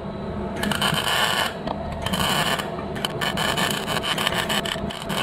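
Stick-welding arc crackling and sputtering on a steel frame tube, coming in short bursts that break off and restart, then turning to a choppy, rapid crackle from about three seconds in.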